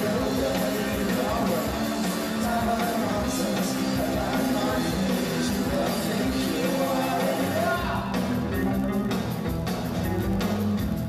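Rock band playing live, a man singing over electric guitar, bass and drums. In the last few seconds a steady drum beat stands out.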